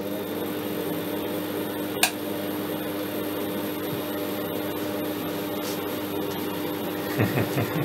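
High-voltage supply driving a Geissler tube, giving a steady electrical hum and buzz. There is a single sharp click about two seconds in and a few brief low knocks near the end.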